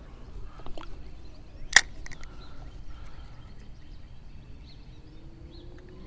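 Quiet outdoor background on the water with a steady low rumble, broken by a few light ticks and then one sharp click a little under two seconds in.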